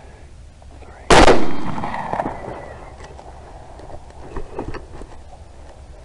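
A single rifle shot about a second in, sharp and loud, its report echoing away over a second or so. A few faint clicks follow a few seconds later.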